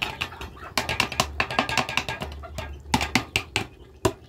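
Metal spatula knocking and scraping against a large cooking pot while stirring a stew: a quick, irregular run of clinks through the middle, over a low rumble.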